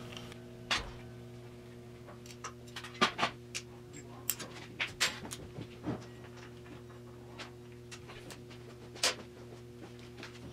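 Scattered metal clicks and clinks of a distributor and its drive parts being handled and lifted out of an engine block, the sharpest about 3 seconds in and near the end, over a steady low hum.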